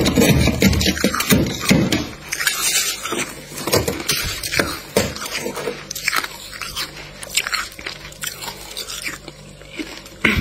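Thick freezer frost crunching and crackling as it is scraped and pried off the freezer shelf with a tool. The crunching is dense for about the first two seconds, then thins to scattered crunches and crackles as the loosened slab of frost is handled.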